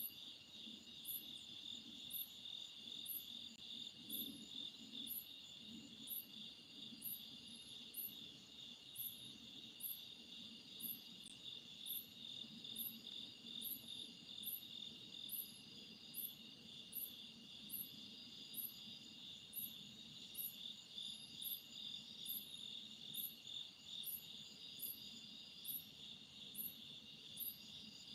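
Night chorus of crickets: a steady, slightly pulsing high trill. Over it a sharp, high tick repeats evenly, a little more than once a second.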